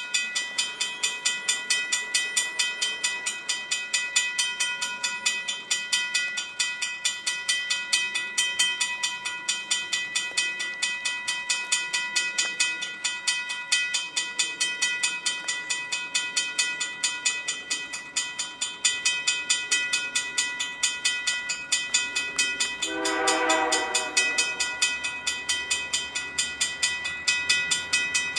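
Railroad crossing bell ringing rapidly and steadily as the crossing signals are activated for an approaching train. Near the end, a distant train horn sounds once, briefly, over the bell.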